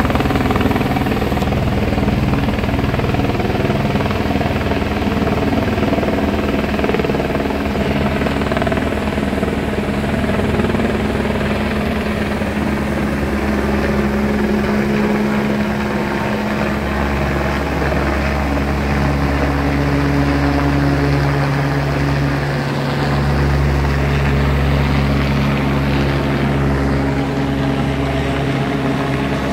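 Helicopter overhead, lifting a wrecked helicopter slung beneath it on a long line: a steady rotor beat with engine noise.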